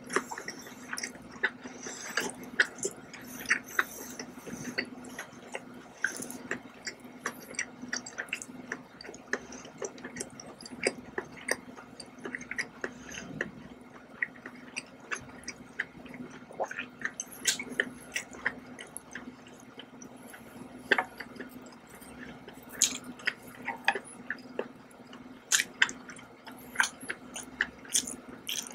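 Mouth chewing scallops in oyster sauce, with many short smacks and clicks coming irregularly throughout, over a faint steady hum.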